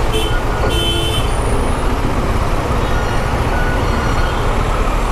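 Slow-moving city traffic: the steady low rumble of a KTM Duke 390's single-cylinder engine at crawling speed, mixed with a truck's engine running alongside. A couple of short horn toots sound in the first second or so.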